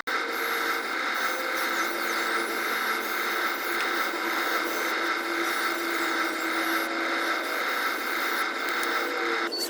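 Steady whine and hiss of small RC construction machines' electric motors and gearboxes running, with held whining tones throughout.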